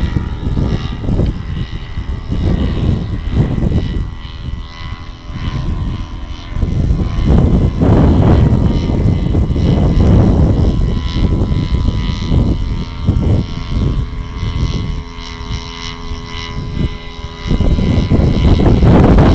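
Powered paraglider's engine and propeller droning steadily overhead as a thin, even hum. Gusts of wind buffet the microphone on and off over it, heaviest from about a third of the way in and again near the end.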